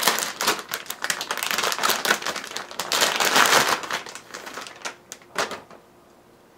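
Plastic anti-static bag crinkling and crackling as a graphics card is slid out of it, loudest about three seconds in; a couple of short rustles follow, and it goes quiet near the end.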